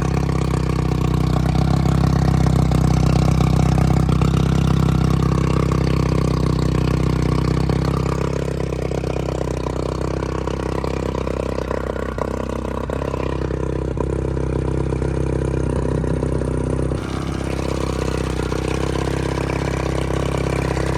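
Honda outboard motor running at a steady idle, its level easing down a little about eight seconds in.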